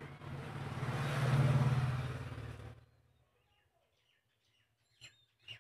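A motor vehicle going by, swelling to its loudest about a second and a half in and fading out within about three seconds. Two light clicks follow near the end.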